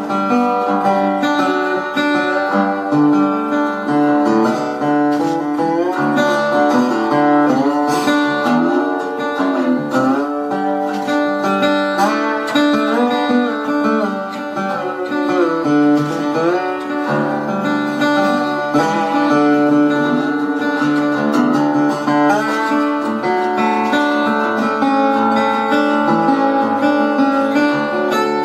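Acoustic guitar music with strummed chords and sliding, bending notes.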